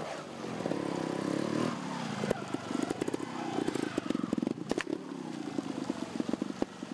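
Trial motorcycle engine being blipped and revved in short bursts, its pitch rising and falling, with a run of sharp knocks and pops through the middle.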